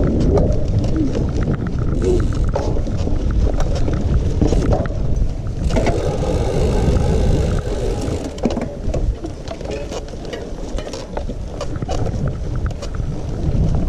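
Mountain bike being ridden over rough ground: wind rumbling on the microphone, with frequent rattles and clicks from the bike.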